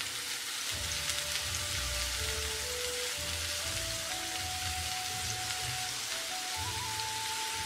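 Cubes of firm tofu sizzling in shallow oil in a frying pan as they are turned. Background music plays over it, a slow melody of held notes.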